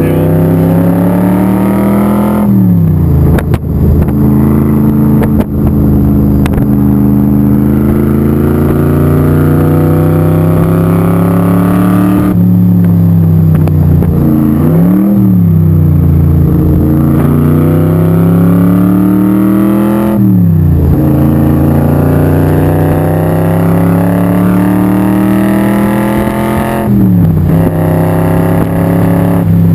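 Supercharged 427 cubic inch V8 of a Shelby Super Performance Cobra pulling hard under full throttle, heard from the open cockpit. The revs climb in long rises and fall away sharply several times on lifts and shifts, with two short throttle blips, about halfway and near the end.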